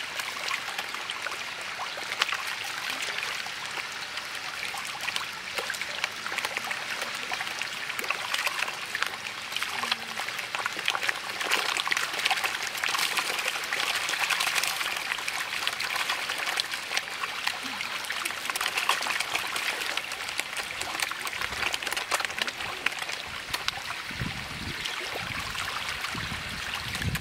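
A dense shoal of carp thrashing and feeding at the pond surface: continuous splashing and churning of water, thick with small sharp pops, swelling about halfway through.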